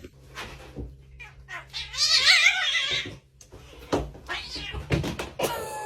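A cat's drawn-out, wavering yowl lasting about a second, followed by a few short knocks.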